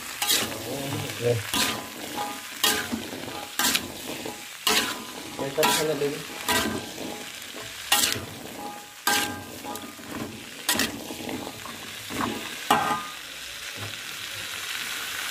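Green beans sizzling in hot oil in a wok while a metal spatula scrapes and clanks against the pan about once a second, each strike ringing briefly. The stirring stops near the end, leaving the steady sizzle.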